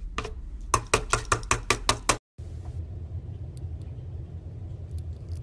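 A metal teaspoon knocked rapidly against the rim of a stainless steel cocktail shaker to shake off apple butter: about a dozen sharp knocks in two seconds, cut off abruptly, then a low steady hum with a few faint ticks.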